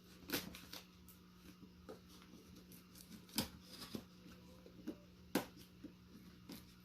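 Hands handling a cardboard shipping box while trying to open it: scattered taps, clicks and light rustling of cardboard, the sharpest about three and a half and five and a half seconds in. A steady faint low hum sits underneath.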